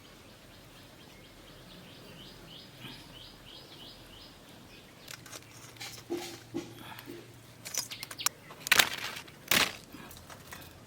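A bird chirping a quick run of short rising notes, about three a second, then a series of clicks and knocks ending in two loud sharp strokes close together near the end.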